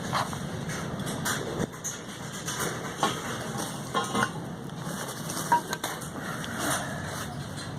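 Strong wind buffeting, with irregular knocks and metallic clattering scattered throughout.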